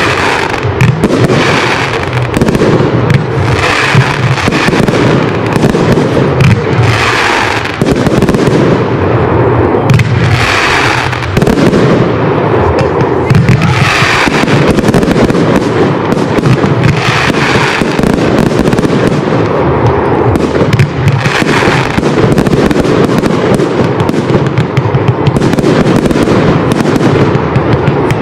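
Fireworks display going off in a continuous dense barrage of bursts and crackling, with a fresh surge every second or two and no let-up.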